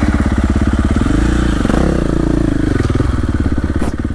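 2023 KTM 450 XC-F's single-cylinder four-stroke engine running, with the revs rising and falling back once in the middle.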